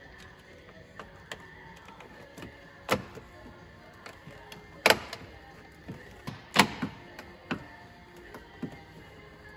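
Plastic kidney grille clips clicking and snapping into a BMW M3's front bumper as the grille is pushed home: scattered light clicks and three loud snaps, about three, five and six and a half seconds in. Quiet background music underneath.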